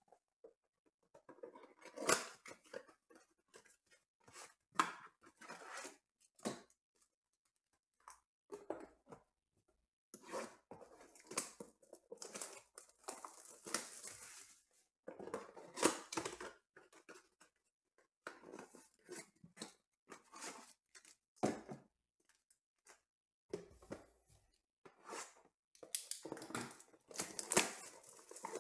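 Plastic shrink-wrap and cardboard packaging of trading-card blaster boxes crinkling and tearing as they are opened by hand, in irregular bursts with short quiet gaps between.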